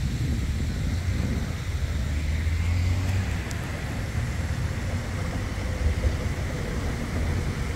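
Fountain jets splashing steadily into the basin, a continuous hiss of falling water, over a low steady rumble.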